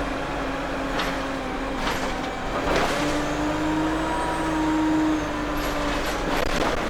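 ADL Enviro 200 single-deck bus under way, heard from on board: the engine note steps up about three seconds in and holds, with a faint high turbo whine that rises and falls. Sharp knocks and rattles from the bus body come at intervals, several close together near the end.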